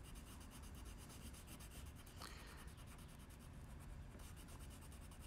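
Faint scratching of a white colored pencil rubbed back and forth over paper, layered on top of blue pencil to blend it into a lighter blue.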